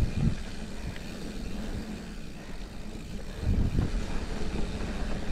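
Giant Trance mountain bike rolling fast down steep dirt singletrack: a steady low rumble of tyres and frame over the rough ground, with heavier thuds from bumps at the start and about three and a half seconds in.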